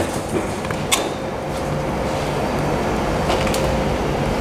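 Steady hiss and hum from a cooktop heating a steaming stainless-steel stockpot of beef-bone broth. A few sharp metal clinks come as steel tongs knock against the pot while beef bones are lowered in.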